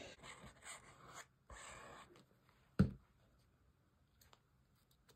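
Paper card pieces being handled on a tabletop: rustling and scraping for about the first two seconds, then a single sharp tap just under three seconds in.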